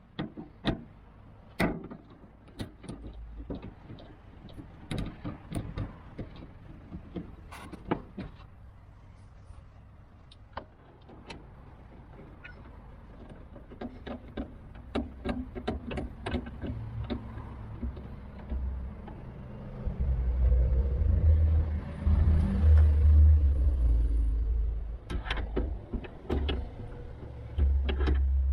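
Hand work inside a car door: irregular metallic clicks, taps and knocks from tools and lock parts being handled. A heavy low rumble comes in for the second half.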